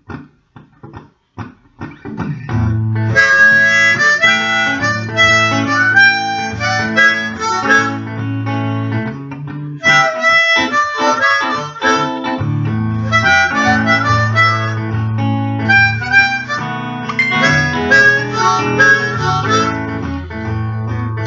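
Harmonica playing a blues intro over guitar accompaniment with a steady low bass line. It starts about two seconds in after a few light clicks and pauses briefly midway.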